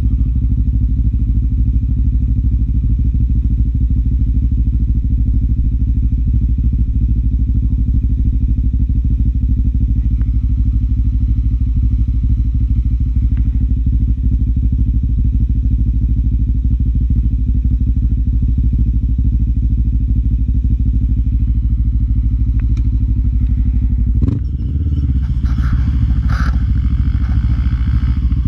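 Quad bike (ATV) engine idling steadily close by. Near the end there is a knock, and the engine picks up as the quad moves off.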